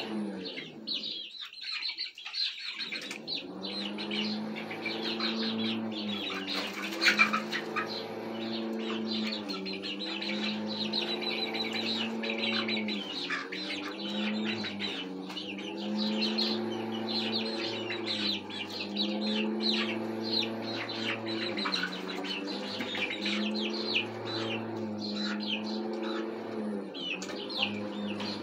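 Young chickens chirping and peeping over and over as they settle on the roost, with a louder flurry about a quarter of the way through. A steady low hum runs underneath.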